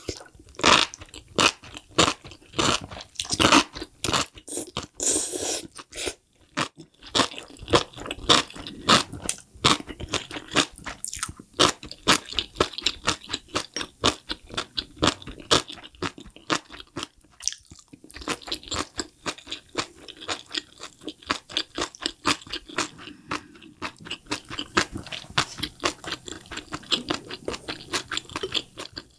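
Close-miked chewing of a mouthful of enoki mushrooms: rapid, crisp crunching several times a second, with a couple of brief pauses.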